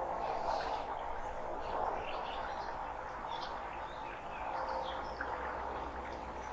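Forest birds chirping and calling, many short calls overlapping, over a steady background hiss.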